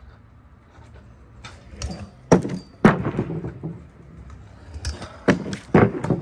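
Kick scooters knocking and clattering on the pavement and a wooden pallet ramp: two pairs of sharp knocks, each about half a second apart, with a few lighter knocks around them.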